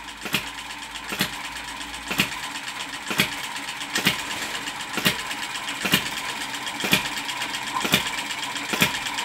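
Miniature hit-and-miss engine running, with a sharp knock about once a second and lighter clicking between, as it belt-drives a small speed reduction unit and toy Ferris wheel. The engine is running easily, not labouring under this load.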